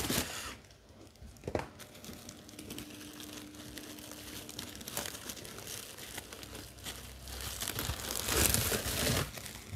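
Crinkling and rustling of cardboard and plastic packaging being handled, with a sharp tap about a second and a half in and louder rustling near the end.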